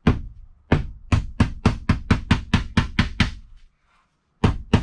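Rapid hammer blows, about four or five a second, knocking the box up into place. They stop about three and a half seconds in and start again near the end.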